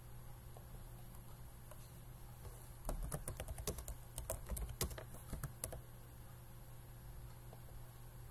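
Computer keyboard typing: a quick run of keystrokes that starts about three seconds in and lasts about three seconds, over a faint steady low hum.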